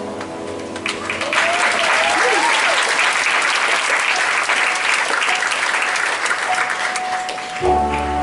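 Audience applauding, the clapping starting about a second in and stopping shortly before the end, with one voice whooping over it early on.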